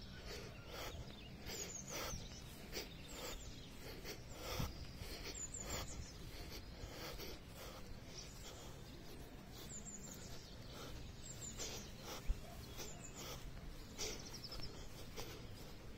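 Small birds chirping: short, high, downward-sliding notes in little clusters every second or two, over a faint outdoor background hiss.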